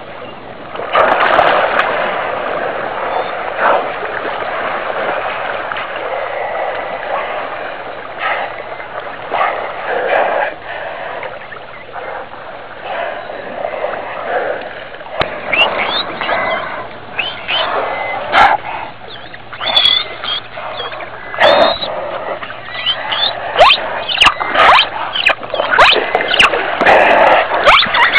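Water splashing and sloshing around a pod of pilot whales stranded in shallows. From about halfway on come many short, curling high whistles and sharp clicks: the calls of the stranded whales.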